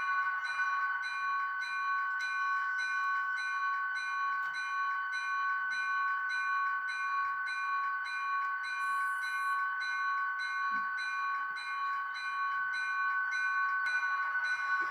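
Model railroad locomotive's electronic sound: a steady tone with a bell-like ring repeating about two and a half times a second.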